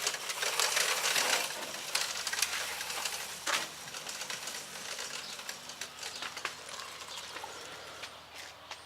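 A child's quad bike moving off, its running and tyre noise fading steadily as it goes, with scattered clicks and crackles.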